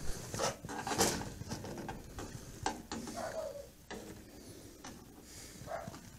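Soft rustling, knocks and footsteps picked up by a body-worn camera as the wearer moves slowly, with a few brief low pitched sounds scattered among them.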